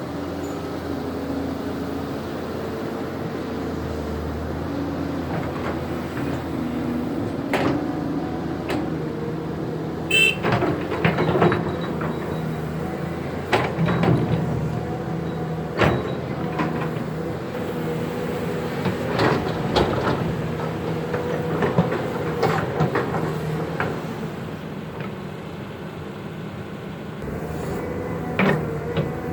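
Caterpillar 320 hydraulic excavator's diesel engine running under working load, its pitch rising and falling, with repeated sharp knocks and scrapes as the machine digs.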